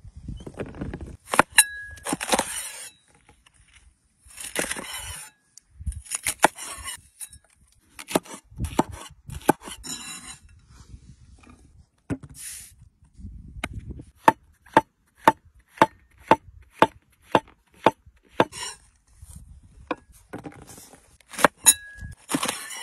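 Knife chopping vegetables on a wooden cutting board: a run of evenly spaced sharp knocks, about two a second, in the middle stretch, among scattered handling knocks. A ringing metal clink sounds shortly after the start and again near the end.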